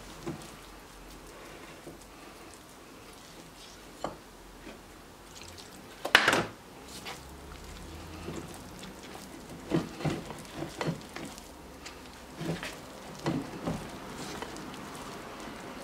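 Wire whisk stirring thick waffle dough in a glass bowl: wet, sticky squelching with irregular clicks and knocks of the whisk against the bowl, the loudest knock about six seconds in.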